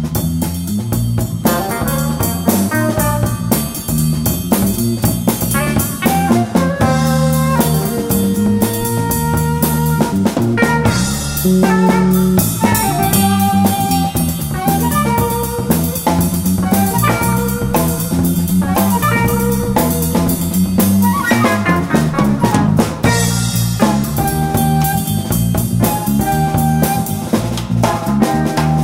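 Live jazz-funk band playing: violin carrying the melody over electric bass, drum kit and guitar, with a steady groove.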